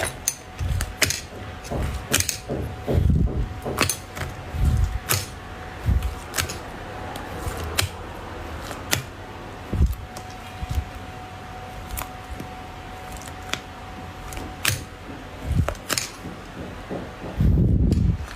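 Slime being squeezed and poked by hand: irregular sharp clicks and pops over soft, low squishes, with a longer, heavier squish near the end.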